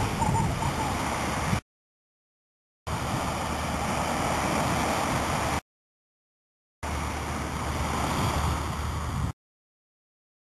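Steady rushing of surf and wind, cut into three stretches of two to three seconds, each ending abruptly in about a second of total silence.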